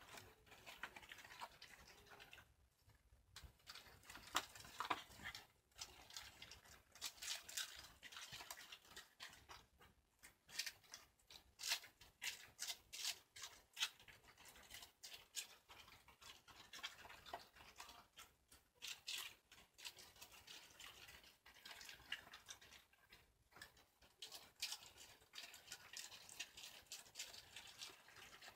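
Shiba Inu chewing a raw cabbage leaf: faint, irregular crunches coming in quick clusters.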